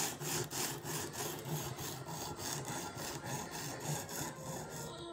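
Sharpening stone on a guided-rod knife sharpener rubbed rapidly back and forth along a small pocket knife blade: an even scraping rhythm of about four strokes a second, growing lighter in the second half.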